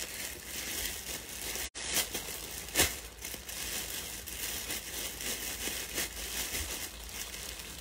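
Clothing rustling and crinkling as garments are handled and pulled off, with two sharp taps in the first three seconds.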